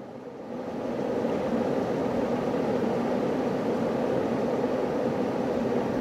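Morphy Richards Flamio electric kettle heating water toward the boil: a steady rushing, hissing noise that grows louder over the first second, then holds.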